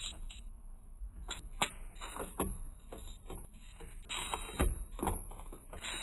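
Cardboard juice boxes and squeeze pouches being set one by one into a clear plastic fridge bin: a run of light, irregular taps and clunks, several a second.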